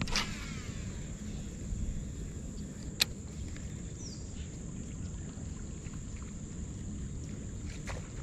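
Baitcasting reel spool spinning out as a lure is cast, a whir falling in pitch over about a second, then a single sharp click about three seconds in, over steady outdoor background noise.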